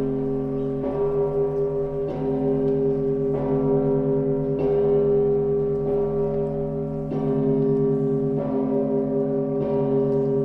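Russian Orthodox church bells ringing: a deep bell is struck at a steady pace about every second and a quarter, and its hum rings on between strokes with a slow pulsing.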